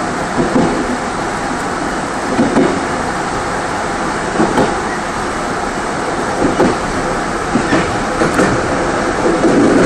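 Mugunghwa-ho passenger train running on the rails, heard from inside its last car: a steady rumble of the wheels with short clacks about every two seconds as the wheels cross rail joints.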